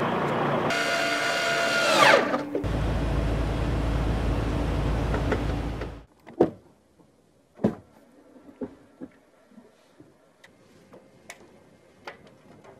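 A sound-effect whoosh with a steep fall in pitch, then a steady rushing noise with a deep rumble that cuts off suddenly about six seconds in. After that come faint scattered knocks and clicks: a hand gripping a truck cab's grab handle and boots stepping up onto the cab steps.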